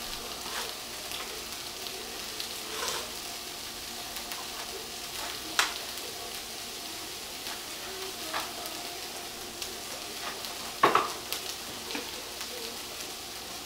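Chicken frying in olive oil in a nonstick pan: a steady sizzle, with a few light clicks and taps now and then.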